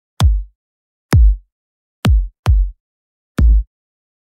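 Electronic house kick drum samples played on their own: five separate hits, each a short click followed by a low boom that drops in pitch and dies away quickly. Two of the hits come close together just past the middle.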